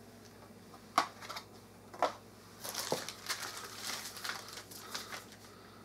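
A few light knocks and clicks as boxed parts are handled and set down, then soft crinkling of plastic packaging being pulled from a cardboard box.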